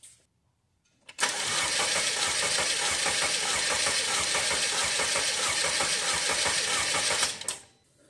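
Mercedes-Benz M274 2.0-litre four-cylinder petrol engine being cranked on the starter for about six seconds without starting, stopping near the end. Its cranking cadence is uneven because cylinder 1 has no compression.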